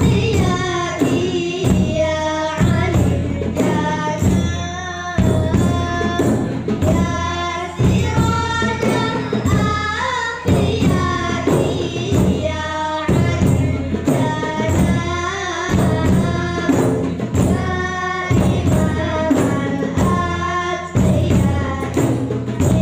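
Group of boys singing an Acehnese seulaweut devotional song in unison, accompanied by hand-beaten frame drums and a large barrel drum keeping a steady rhythm.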